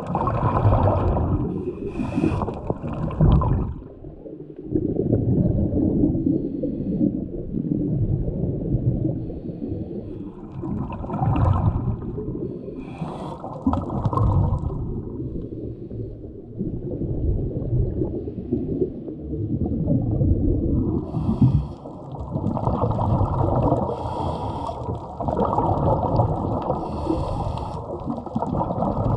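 A diver's breathing and exhaled bubbles heard underwater: a bubbly, gurgling rumble that swells and falls in cycles of a few seconds.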